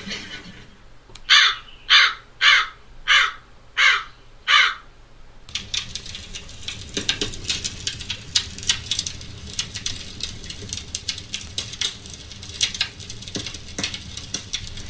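Crow sound effect played through a Google Home smart speaker: six loud caws about half a second apart. About five and a half seconds in, the speaker's fireplace ambience starts up, a steady crackling of burning wood.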